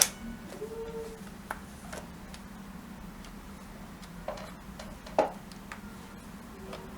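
Scattered sharp clicks and light taps over a steady low hum, the loudest at the very start and about five seconds in.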